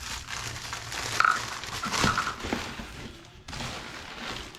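Packaging rustling and crinkling as a parcel is unpacked by hand, with a few light knocks, loudest about one and two seconds in.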